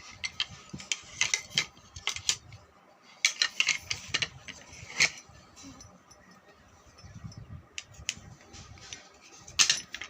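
Handling noises: irregular clicks, taps and rustles as unboxed items and their packaging are handled, with a quieter stretch in the middle.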